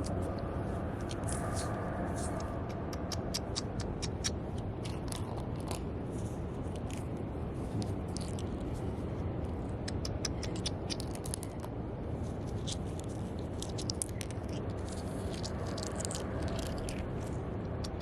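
Scraping and gritty clicking of digging through sand and small stones, many short scrapes in irregular bursts, over a steady low rumbling noise.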